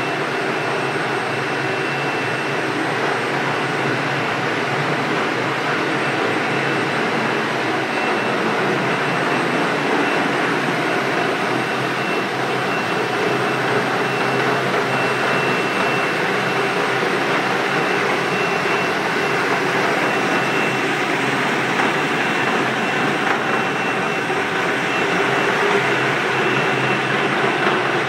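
Single-phase concrete floor grinder running steadily as it grinds down a soft concrete slab, together with its dust-extraction vacuum: a dense, even grinding noise with a thin steady high whine over it.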